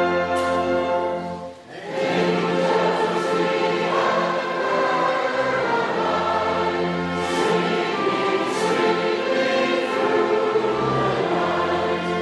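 Choir singing with an orchestra in long held chords, with a brief break about a second and a half in.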